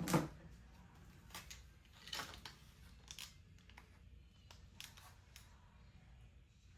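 Faint, irregular clicks and short scrapes of hand tools being handled, about ten over several seconds, the loudest at the very start.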